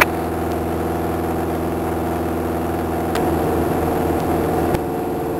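Cockpit drone of a Beechcraft Sundowner's four-cylinder Lycoming O-360 engine and propeller in level cruise, running steadily, growing slightly louder about three seconds in.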